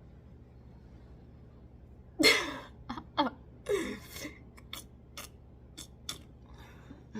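A woman makes a few short non-speech vocal sounds, the first and loudest about two seconds in, followed by several light clicks. A low steady hum runs underneath.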